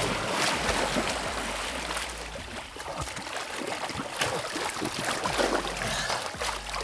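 Water splashing and churning as two people swim hard across a small pool, a continuous mass of small slaps and splashes.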